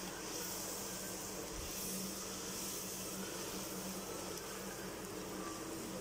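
Hot oil sizzling steadily in an aluminium kadai, heated for deep-frying pooris, over a steady low hum.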